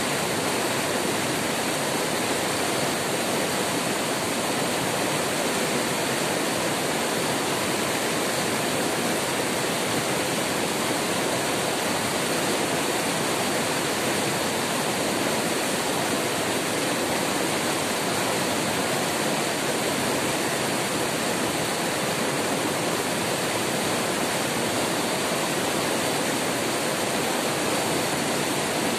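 River rapids: white water rushing and churning over rocks, a steady, unbroken rush of water.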